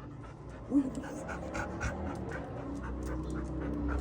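Dog panting fast, about four breaths a second, with one short whine just under a second in.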